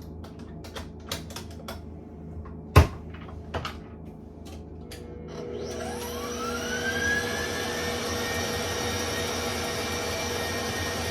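A few sharp clicks and knocks against a mixing bowl. About halfway through, an electric mixer starts up with a rising whine and runs steadily, whipping eggs and sugar for sponge cake batter.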